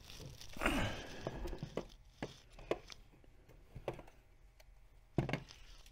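Plastic pistol-grip RC transmitter being picked up and handled on a work mat: a short rustling slide, then a series of light plastic clicks and knocks, the loudest near the end.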